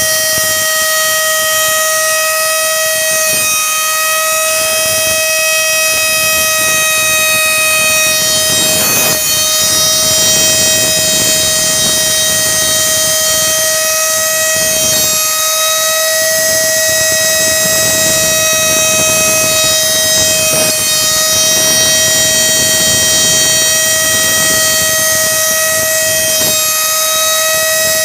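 Arduino GRBL hobby CNC engraver milling a 3D relief with a 0.3 mm engraving bit: a loud, steady, high-pitched whine with overtones over a noisy bed, with short dips about every six seconds.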